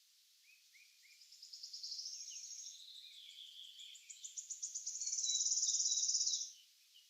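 Songbird singing a long, fast song of high trills that grows louder toward the end, its loudest, fastest trill cutting off abruptly about six and a half seconds in. A few short down-slurred chirps come early on.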